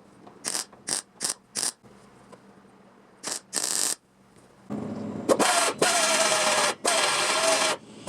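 A few short scraping strokes, then about five seconds in a small motorised tool starts running, its pitch wavering under load. It stops and restarts in stretches of about a second, like work on bare metal.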